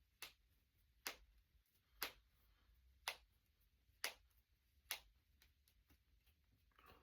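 Finger knuckles cracking one after another: six sharp pops about a second apart.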